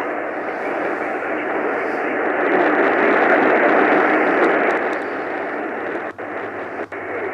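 Radio static: a steady hiss from a weakly received radio station. It swells louder for a couple of seconds mid-way and breaks up with brief dropouts near the end.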